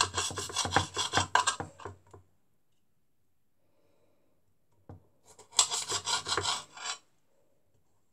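Knife sawing through tomatoes on a chopping board, in two spells of quick rasping strokes: one over the first two seconds, another from about five and a half to seven seconds in.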